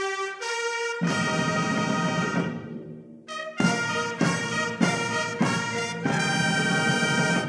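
Brass fanfare intro music with trumpets and trombones: a few rising opening notes and a long chord, then four short repeated chords and a final held chord.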